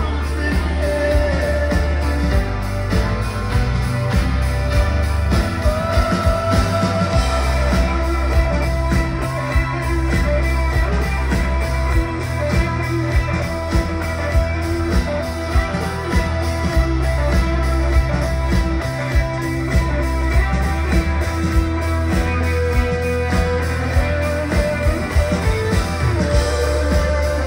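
Live rock band playing, electric guitar to the fore over heavy bass and a steady drum beat.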